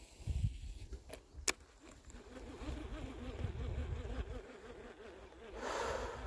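Baitcasting reel being cranked to retrieve the lure: a sharp click about a second and a half in, then a wavering whir of the gears that rises and falls with each turn of the handle. Wind rumbles on the microphone, and there is a short rustle near the end.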